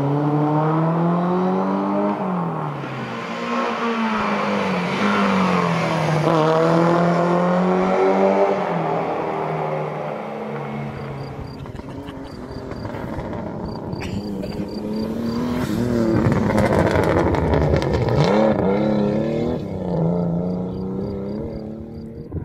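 Rally car engine revving hard, its pitch repeatedly rising and dropping with throttle and gear changes as the car works through a tyre slalom. From about halfway, another run is heard with a low rumble of wind on the microphone under the engine.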